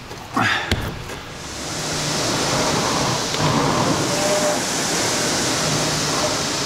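Concept2 indoor rower's air-braked flywheel spinning up with a rushing whoosh over the first couple of seconds of a hard interval, then running steadily, after a couple of knocks from the machine near the start.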